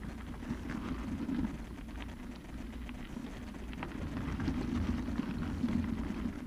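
Bicycle tyres rolling over a gravel road: a steady rumble with scattered sharp crackles of grit and small stones under the wheels.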